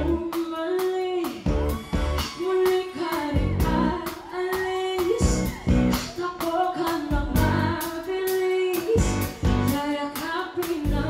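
Live pop band with a female lead singer: she sings over electric guitar, keyboards and a drum kit, holding several long notes that waver at their ends.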